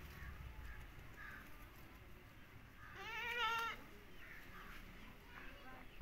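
A single wavering animal call, under a second long, about three seconds in, over faint distant voices.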